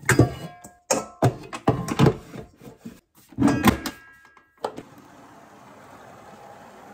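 Knocks and clatter, with brief metallic ringing, as diced pork is tipped from a plastic bowl into a stainless steel stand-mixer bowl and the mixer head is lowered. About five seconds in, the Kitchencook stand mixer starts and runs steadily, kneading the meat.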